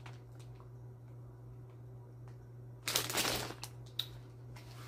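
Handling of a clear plastic packaging bag: a few soft ticks, then a short crinkling rustle about three seconds in, over a steady low hum.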